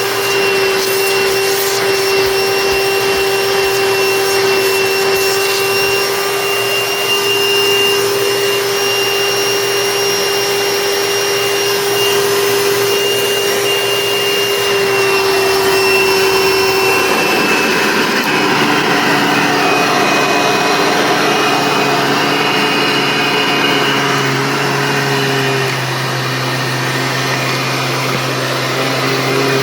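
1993 Hoover Elite upright vacuum cleaner running, with a steady motor whine. A little past halfway the pitch drops and shifts, and it drops again near the end.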